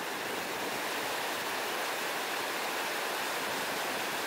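Fast, silt-brown river in spate rushing and churning over a rocky bed, a steady dense noise of white water.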